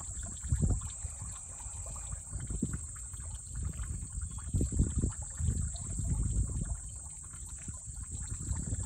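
Common snapping turtles thrashing in shallow water, with irregular sloshing and splashing surges as they wrestle. A steady high-pitched insect buzz sits behind it.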